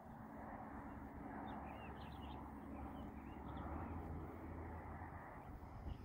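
Faint bird chirps: a short run of quick high notes about one and a half to four seconds in, over a steady low rumble.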